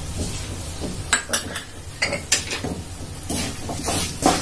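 Metal spatula clinking and scraping against a metal kadhai while stirring a dry spice tempering: a few sharp clinks from about a second in, then scraping strokes near the end.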